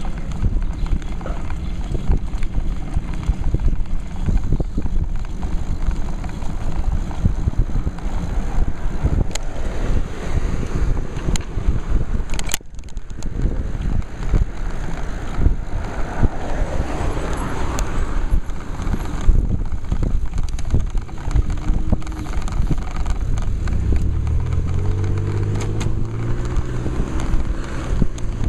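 Wind rumbling and buffeting on the microphone of a handlebar-mounted camera on a moving road bicycle, with scattered rattles and clicks from the mount and bike over the road surface. A low motor-vehicle engine hum comes in near the end.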